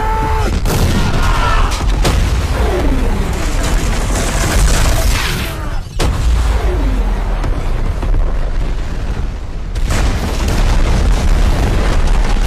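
Dramatic film sound effects: a loud, deep rumbling boom with falling whooshes. A sharp hit about ten seconds in gives way to the roar of a green wildfire explosion.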